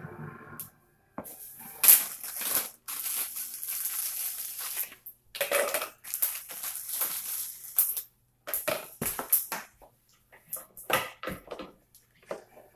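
Curly kale leaves being torn and crunched by hand, a zip-top plastic bag rustling as frozen pineapple chunks are tipped into a plastic blender cup with a few sharp clicks, and kale being packed into the cup near the end.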